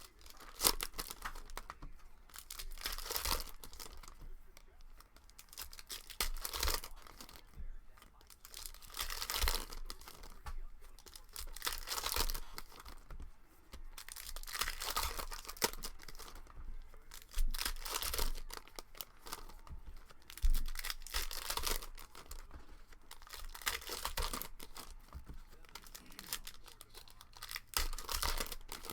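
Trading card pack wrappers being torn open and crinkled by hand, in repeated spells of tearing and rustling every couple of seconds.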